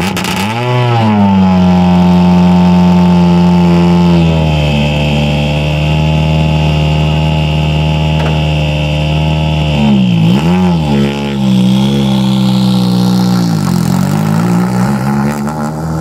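Hyundai i20 WRC rally car's 1.6-litre turbocharged four-cylinder engine running close to its exhaust with the car standing still. It revs up and back once at the start, holds a steady raised speed for several seconds, then dips and picks up again a few times.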